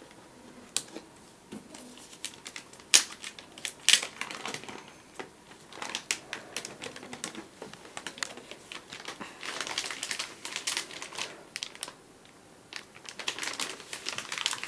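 Hands working on a laptop's screen assembly: irregular plastic clicks and taps, the two loudest about 3 and 4 seconds in, with stretches of crinkling and rustling from the panel, tape and plastic being handled.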